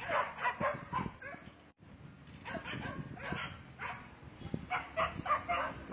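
Hunting dogs barking and yelping in quick runs of short calls, with a lull of about a second after the first second.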